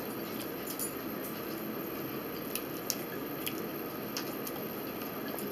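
Faint eating sounds: chewing and biting into tuna sandwiches on soft bread, with a few small sharp clicks scattered through, over a steady background hiss.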